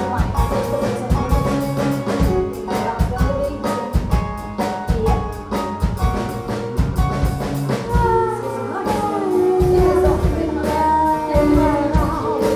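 Live band music: a woman's voice singing a melody over a steady drum beat and band backing, the singing more prominent in the second half.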